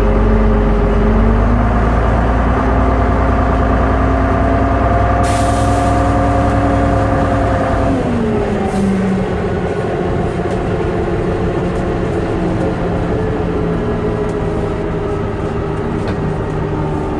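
MCW Metrobus double-decker's diesel engine and drivetrain heard from inside the passenger saloon while under way. The engine note climbs over the first few seconds and holds, with a short hiss of air about five seconds in. About eight seconds in the note drops sharply and settles at a steady lower pitch.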